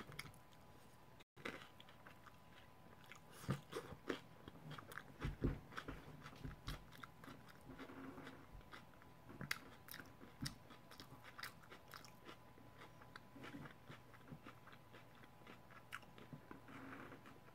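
Faint, close-miked chewing and crunching of a crispy fried-tortilla bean taco: a bite at the start, then irregular crunches and wet mouth sounds.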